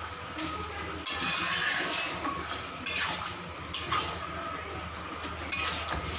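Metal spatula scraping and clinking against a steel wok as chilli chicken in sauce is stirred, just after cornflour slurry has gone in to thicken it. There are four sharp stirring strokes, spaced unevenly, over the steady hiss of the simmering sauce.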